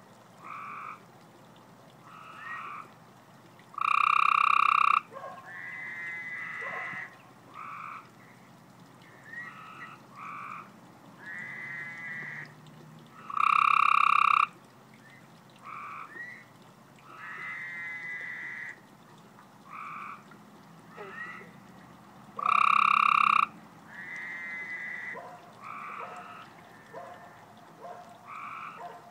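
Tree frog calling at a pond. Three loud calls about a second long come roughly every nine seconds, with shorter notes and pulsing trills in between.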